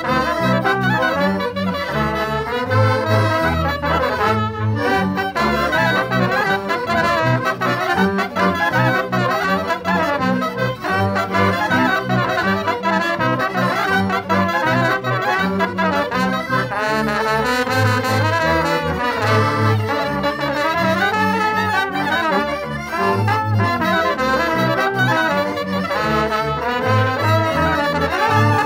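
A Polish village folk band (kapela) playing live. Trumpet and clarinet carry the melody over violin and accordion, and a double bass plays low notes on a steady beat.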